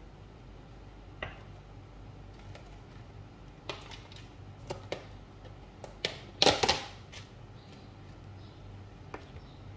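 Scattered sharp kitchen clicks and knocks, with a louder clatter of several knocks about six and a half seconds in, over a steady low hum.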